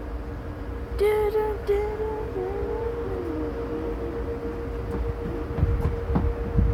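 A person hums a short wandering tune for about two seconds, starting about a second in, over a steady low rumble and a faint steady tone. Low thumps of wind on the microphone come near the end.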